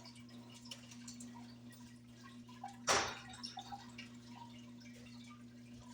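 Faint steady electrical hum with small scattered ticks and one sharp knock about three seconds in.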